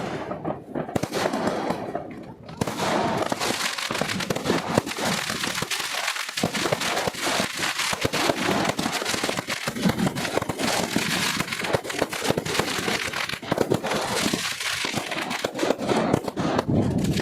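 New Year fireworks going off in a dense, continuous crackle of bangs and pops, thinning briefly about a second or two in.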